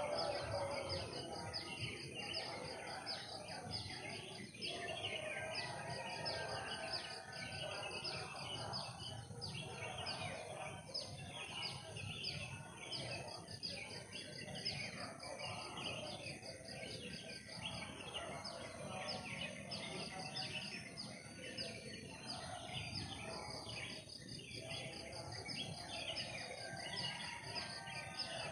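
Forest ambience: dense insect chirring, with a steady high whine and a rapid pulsing trill over it, among varied chirping calls.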